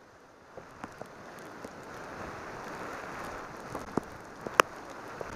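Rain: a wet hiss that swells through the middle, with scattered raindrop taps on the camera and one sharp tap about four and a half seconds in.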